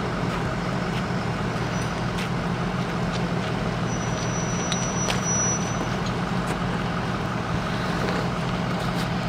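A vehicle engine running steadily, a constant low hum with a few faint clicks over it.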